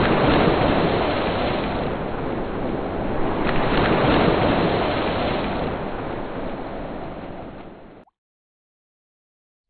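Loud, even rushing noise with no tone, like surging water. It swells about half a second in and again around four seconds, then fades away and cuts to silence about eight seconds in.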